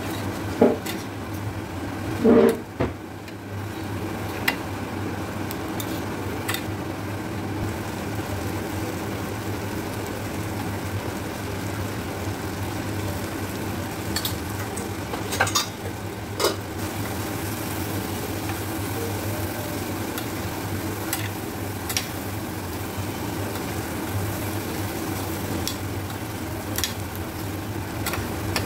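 Sweet corn kernels, onion and green chilli sizzling in butter in a steel pan while a steel spoon stirs and scrapes them, over a steady low hum. The spoon clinks against the pan, loudest about a second in and again two to three seconds in, with a few more clinks later.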